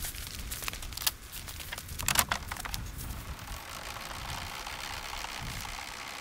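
Hand crank of a Maggiolina hard-shell rooftop tent being turned to raise the lid, its gear mechanism running with a steady ratcheting noise from about three seconds in. Before that, a few sharp clicks and knocks, the loudest about two seconds in.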